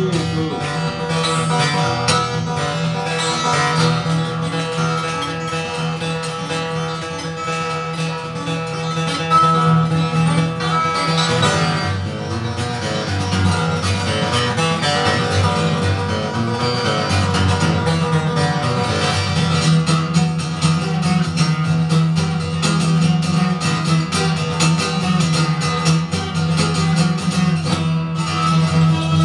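Martin D-18 Authentic, a mahogany-bodied dreadnought acoustic guitar, played solo in an instrumental passage without singing, a continuous run of ringing notes and strums.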